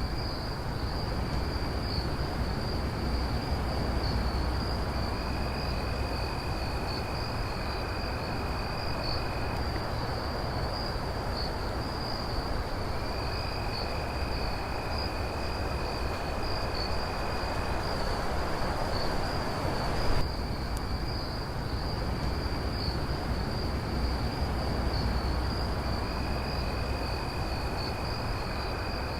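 Crickets chirping in a steady high trill, with a second, lower trill that comes and goes in long spells of a few seconds each, over a steady background hiss and low rumble. A brief click about twenty seconds in.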